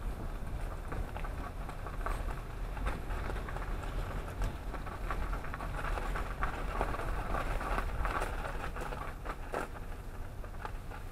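Car driving slowly on a snowy lane: a steady low road rumble with dense crackling and scattered clicks from the tyres on snow.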